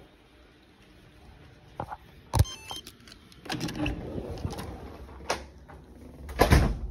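An office door being unlocked and pushed open: a few sharp clicks and knocks from the latch and handle, the loudest about two and a half seconds in and near the end, with rustling in between.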